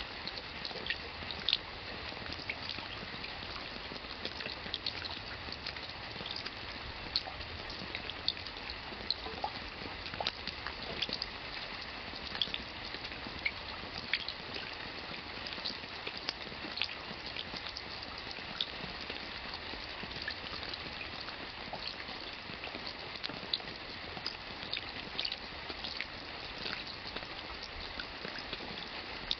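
Rain falling steadily, with many separate drops pattering and splashing in an irregular scatter over an even hiss.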